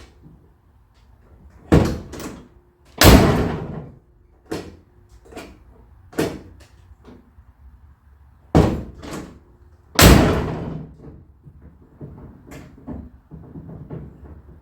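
A car door slammed shut twice, hard, about 3 seconds in and again about 10 seconds in. Between the slams come smaller metallic clicks and clunks from the latch, lock and handles as newly fitted door latches and lock are worked and tested.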